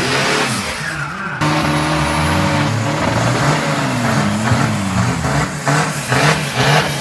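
Toyota HiAce vans doing burnouts: the engines are held at high revs while the rear tyres spin, the pitch rising and falling. The sound switches abruptly to another van about a second and a half in, and turns into a rapid pulsing near the end.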